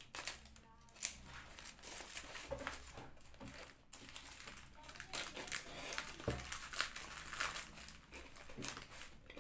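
Tape-wrapped plastic courier mailer being slit with a utility knife and torn open by hand: irregular crinkling and crackling of the plastic.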